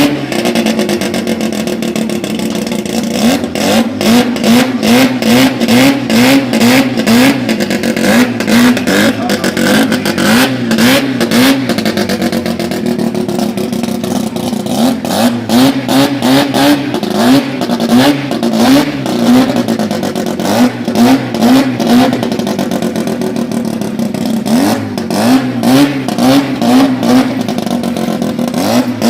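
Turbocharged rotary engine in a Toyota Corolla KE30 running loud, blipped again and again in quick runs of short revs, about two a second, with crackling between them.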